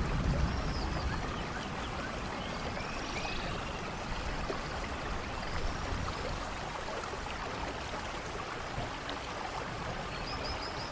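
Steady rain in a rainforest thunderstorm, with the tail of a low thunder rumble fading in the first second. A few short high chirps come and go over the rain.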